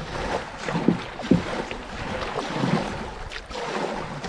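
Canoe paddle strokes in flowing river water, several short splashes over the steady rush of the current as the canoe ferries across toward an eddy.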